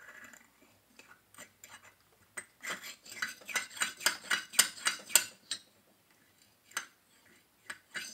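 Metal parts clinking and scraping together by hand: a Minarelli two-stroke cylinder being shifted and fitted against a steel bar. There are a few light taps, a quick run of clicks and scrapes in the middle, then a few more single clicks near the end.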